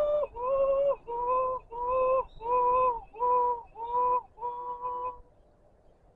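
A man crying: a run of short, high-pitched sobbing cries, each about half a second long and held on one note, dipping slightly at its end. They stop about five seconds in.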